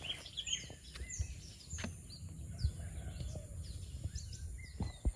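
Birds chirping in short, quick calls over a low rumble of wind on the microphone, with a few knocks of footsteps on bamboo slats.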